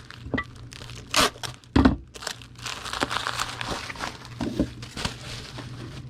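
Bubble wrap crinkling and rustling as it is wrapped around a small pack by hand, with a sharp knock about a second in and a heavier thump just under two seconds in.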